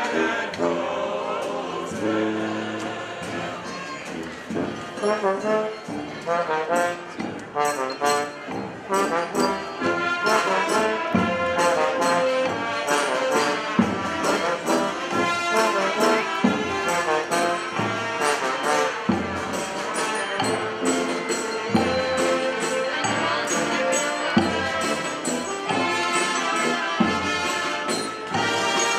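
Street brass band playing a tune, horns over a steady drumbeat.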